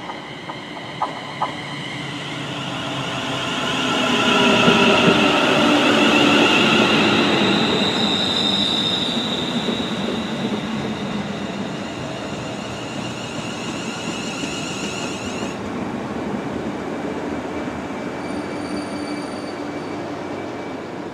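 A London Northwestern Railway Class 350 Desiro electric multiple unit runs into the platform and brakes. The sound swells as it draws level, to its loudest about five seconds in, and its motor whine slides down in pitch as it slows.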